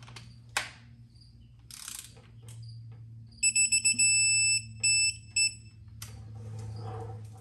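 Quinn digital torque wrench beeping as it tightens the drain plug: a few quick beeps, a held tone about half a second long, then a few more short beeps. The beeping signals that the set torque of 36 ft-lb has been reached.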